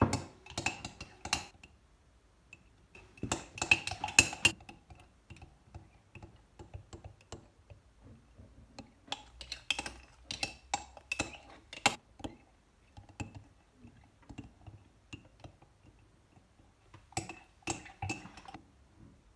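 Metal spoon clinking against the inside of a ceramic mug while stirring a thick dish-soap-and-salt slime mixture, in several bursts of quick clinks with short pauses between.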